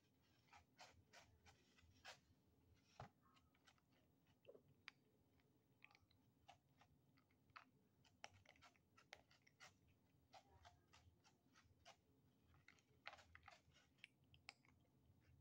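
Faint, irregular crunching and clicking of kittens chewing dry kibble from a plate.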